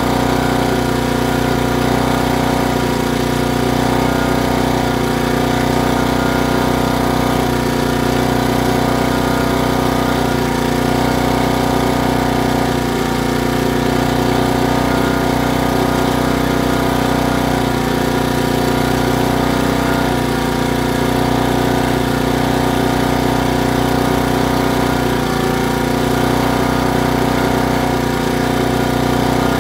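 Firman 1050 portable generator's small 80 cc gasoline engine running at a steady speed, with no change in pitch or level.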